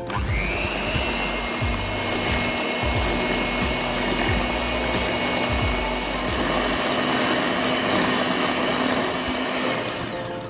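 Small electric mixer running steadily as it whips the Milo, sugar and hot water mixture; its whine rises as it spins up at the start and it switches off near the end. Background music plays underneath.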